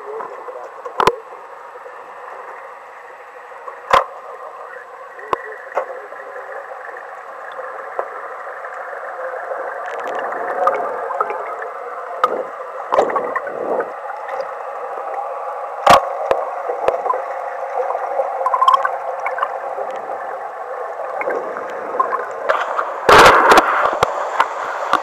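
Muffled water gurgling and sloshing heard through a camera held underwater, cut off at both the low and high end, with a few sharp knocks, the loudest a quick cluster near the end.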